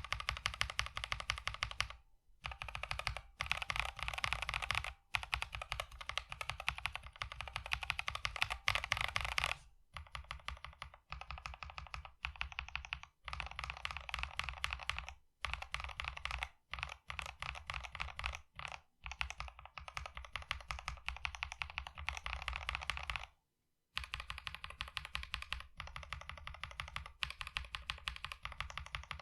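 Fast typing on a mechanical keyboard fitted with Infinity Key Cow V2 linear switches (long-pole stems, 63.5 g springs), a dense run of keystroke clacks in bursts with short pauses. About ten seconds in the clatter becomes a little quieter and duller.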